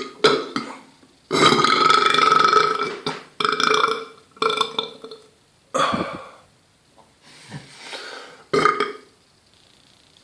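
A person belching over and over, about seven burps in a row with short pauses between, the longest one drawn out for nearly two seconds early in the run and the last few fainter.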